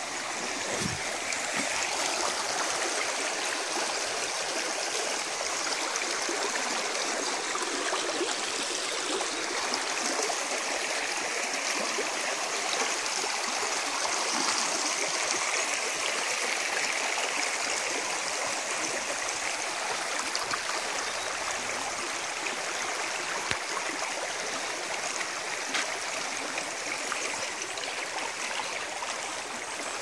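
Spring-fed stream flowing over stones and out of a small concrete channel: a steady rushing babble of water.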